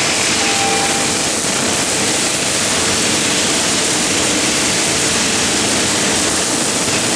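MIG welding arc of an automatic CNC gantry welder, a steady loud hiss and crackle running without a break.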